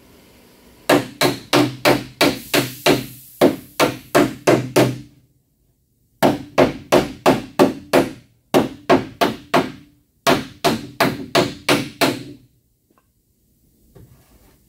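Small body hammer tapping a dented steel body panel against a dolly held behind it, working the dent out. The taps come fast and even, about three or four a second, each with a brief metallic ring, in several runs broken by short pauses.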